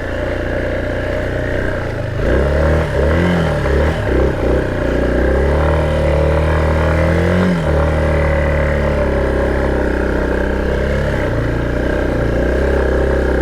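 Off-road motorbike engine running under load, revved in quick uneven bursts a couple of seconds in and again about seven seconds in, then pulling at a steady pitch.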